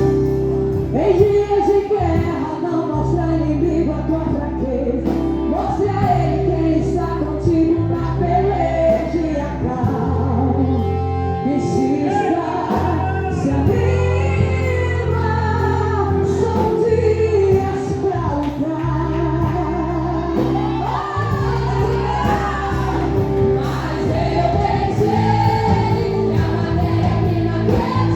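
Worship band playing a lively Christian praise song with a lead singer, over steady, held bass notes.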